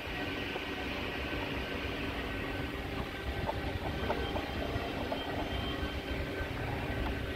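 Steady low rumbling background noise, with a few faint clicks about three and a half to four seconds in as the plastic oil filter housing cap is handled and fitted.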